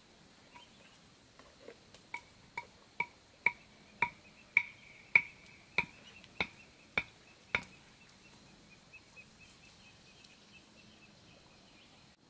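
A run of about a dozen sharp, ringing knocks, roughly two a second, growing louder and then fading away, starting about two seconds in and stopping a little past halfway.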